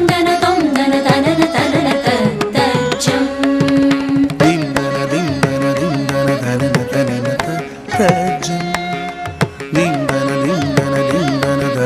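Carnatic classical music: drum strokes keep a rhythm under a melody line that slides and bends in pitch.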